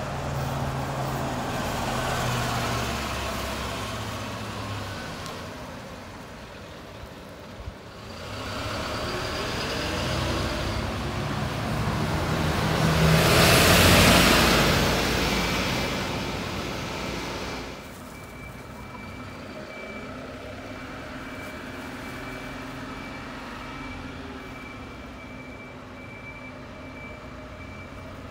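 Diesel city buses moving through a bus depot: engines pulling away and slowing, their pitch rising and falling, loudest about halfway through. A thin steady high tone runs through the second half.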